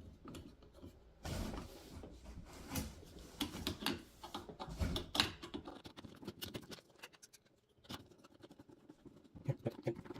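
Faint irregular clicks and scraping as a screw is driven by hand with a Phillips screwdriver into the pressure washer's plastic frame, with parts being handled. It goes quieter a few seconds before the end, with only a few scattered clicks.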